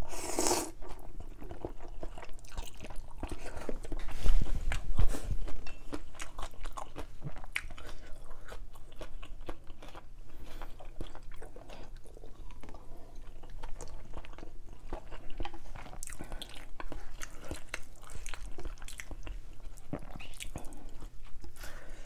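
A person eating noodle soup: a loud slurp of noodles at the start, then steady chewing with many small wet clicks, and a louder low burst about four to five seconds in.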